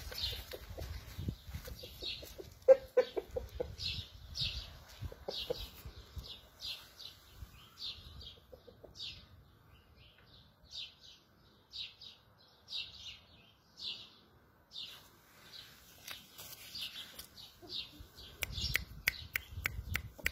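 A rooster gives a few low clucks in the first few seconds, over a steady run of short, high bird chirps about once or twice a second. Several quick sharp clicks come near the end.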